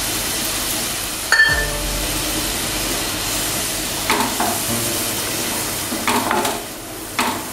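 Thin curry gravy of fried spice paste and freshly added water sizzling steadily in a nonstick wok. A sharp clink comes about a second in, and from about four seconds in a wooden spatula stirs, knocking and scraping against the pan a few times.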